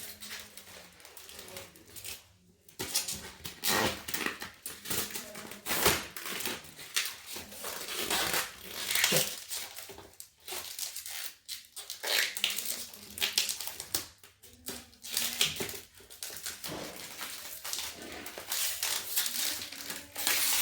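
Plastic packaging crinkling and rustling in irregular bursts as it is pulled and peeled off a laptop case by hand.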